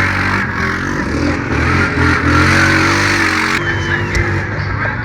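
ATV (quad bike) engines racing, revving up and down with rising and falling pitch.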